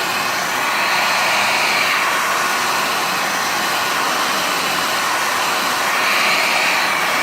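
Hot-air blower running steadily at full blast, with slow swells in its hiss, heating a phone to soften the adhesive before it is opened.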